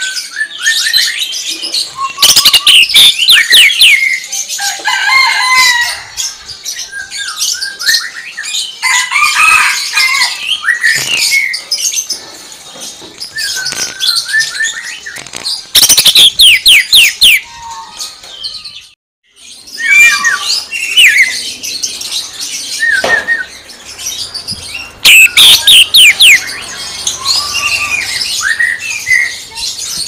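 Green leafbird (cucak ijo) singing a fast, varied song, broken by bursts of sharp rapid-fire notes in the 'tembakan' (shot) style. The three loudest bursts come about 2, 16 and 25 seconds in, with a brief break near 19 seconds.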